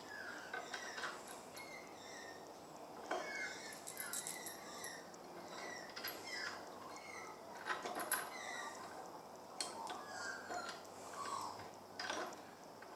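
Small steel bolts clinking and knocking against each other and the metal jaws of a mini vice as they are slid in one by one, in irregular clicks.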